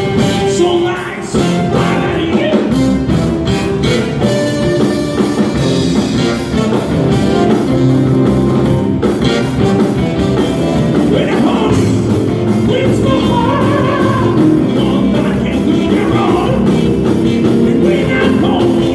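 Live rock band playing a cover song: guitar and drums, with singing.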